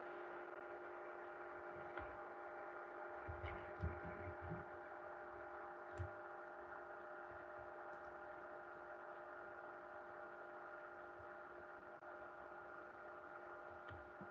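Faint steady electrical hum of several held tones, with a few soft clicks around the middle.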